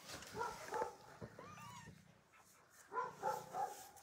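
Young kittens mewing: faint, short, high calls, a few in the first second and a half, then a quick run of them near the end.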